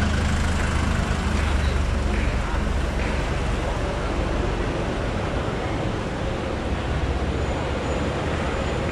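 City street ambience: steady traffic noise with a vehicle's low engine rumble, strongest in the first two or three seconds, and scattered voices of people nearby.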